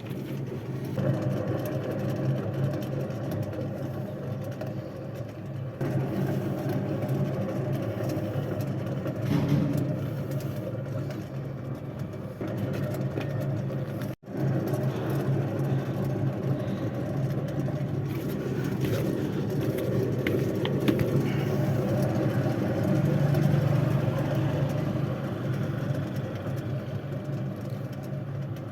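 Car on the move with a steady low drone from a defective wheel bearing, the sign of a worn bearing. The sound swells a little in the second half and drops out for an instant about halfway through.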